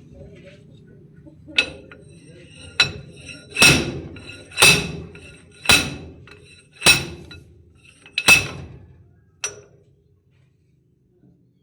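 Metal struck hard about eight times, roughly once a second, each blow ringing briefly, as in hammering on a metal part.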